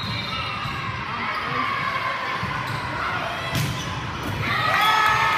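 Volleyball rally in a large gym. The ball is struck with sharp slaps, the loudest about three and a half seconds in, under a hum of players' and spectators' voices. Shouts rise near the end as the rally is decided.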